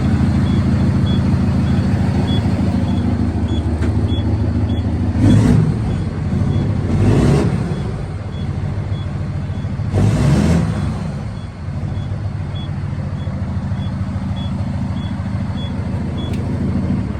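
Heavy truck's diesel engine running steadily, with a short high beep repeating about every half second. Three louder swells with sliding pitch come about five, seven and ten seconds in.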